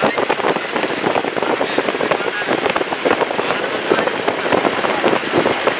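Dense, continuous crackling and rustling of leafy branches and twigs brushing close past the microphone as it pushes through thick scrub.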